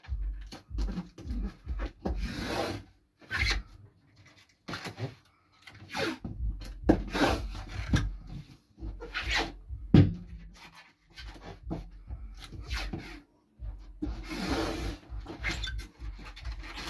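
Packing tape pulled off its roll onto a cardboard box and rubbed flat by hand: rasping tears and scrapes, the two longest about two seconds in and about two seconds before the end.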